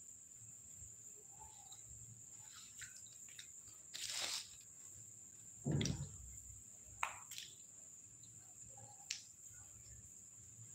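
Fresh green chickpea pods being split and shelled by hand: a few faint crackles and soft snaps, the loudest about four and six seconds in. A faint steady high-pitched tone runs behind them.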